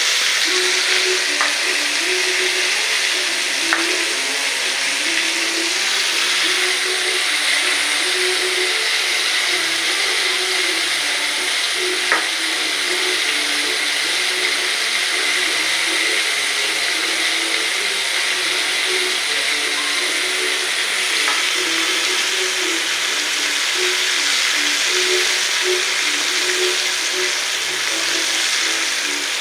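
Chicken pieces deep-frying in hot oil: a steady, even sizzle, with a couple of brief sharp clicks, one a few seconds in and one near the middle.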